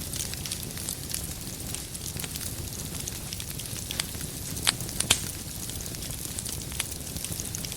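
Wood fire crackling: many small, sharp crackles over a steady low rumble, with two louder pops in quick succession a little past halfway.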